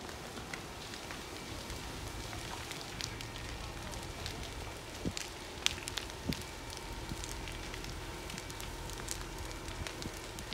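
Large building fire burning, with a steady rush and many scattered crackles and pops from the burning wreckage, a few sharper pops near the middle.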